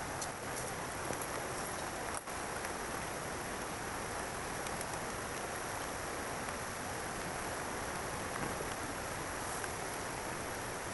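Steady, even hiss of water, with a few faint ticks just after the start.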